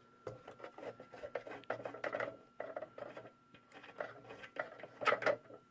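Light, irregular clicking and rattling of a bolt being undone and the plastic spark-guard cover being worked off a small bench belt sander, with the sander switched off.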